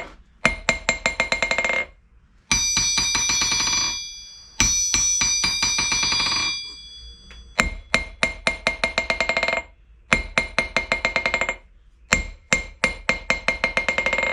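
A steel test piece dropped on anvil faces, bouncing and ringing in runs of taps that come quicker and quicker as they die away. About two and a half seconds in and again near five seconds, two single strikes ring on for about two seconds each. It is a rebound test comparing the VEVOR 66 lb London pattern anvil with another anvil, and the VEVOR shows the worse rebound.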